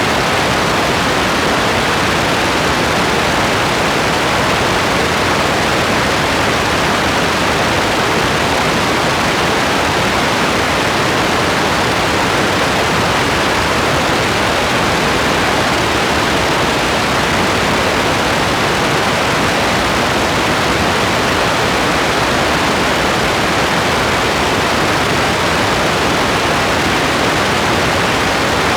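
Steady, even rain hiss with no distinct drops or thunder.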